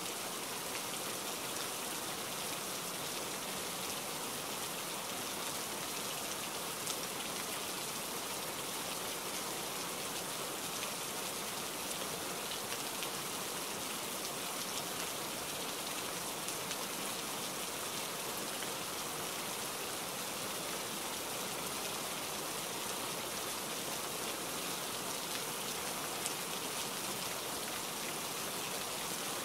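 Steady rain: an even, unbroken hiss with a couple of faint ticks.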